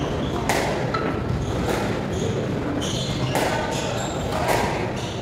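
Squash ball hitting rackets, walls and floor in a squash court: sharp knocks roughly once a second.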